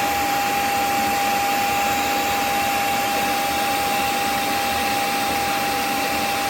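Shark IQ self-empty base's suction motor running: a steady rush of air with a steady high whine as it pulls debris out of the robot's dustbin. The owner calls this normal.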